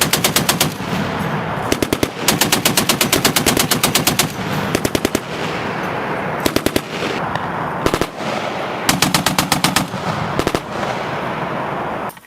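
American machine gun firing repeated bursts of varying length, from a fraction of a second to about two seconds, at roughly ten rounds a second. A steady loud noise fills the gaps between bursts.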